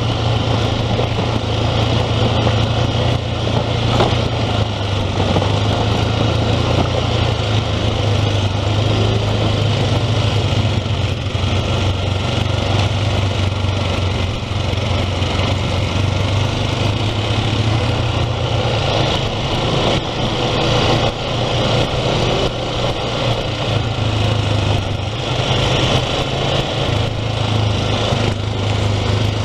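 ATV engine running steadily while the quad rides along, heard close from a camera mounted on the machine, with a constant low hum.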